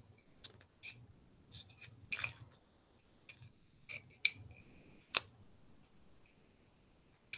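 Adhesive tape being wrapped tightly around a plastic boba straw and wooden tongue depressors: scattered short crackles and clicks, with a brief thin squeal about four seconds in and the sharpest click just after five seconds.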